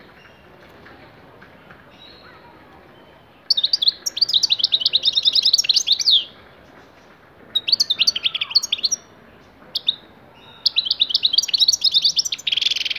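A six-month-old European goldfinch singing: after a quiet start, four bursts of rapid, high tinkling twitters begin about three and a half seconds in, the last ending in a harsher buzzy note.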